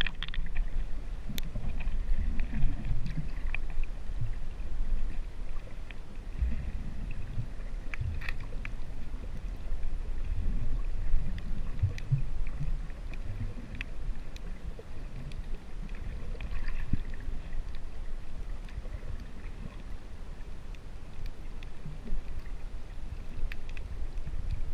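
Water sloshing and rumbling around a GoPro's waterproof housing held just under the surface, a dull, uneven low rumble with a few faint clicks.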